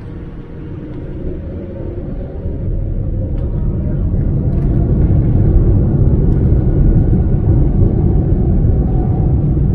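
Boeing 787-9's GEnx-1B engines spooling up for takeoff, heard from the cabin: a low rumble that grows steadily louder over the first four seconds, then holds at full strength as the airliner lines up and rolls.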